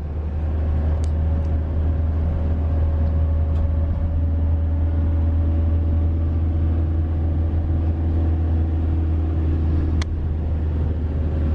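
Steady low rumble of a passenger minivan driving along, heard from inside the cabin, with a few light clicks.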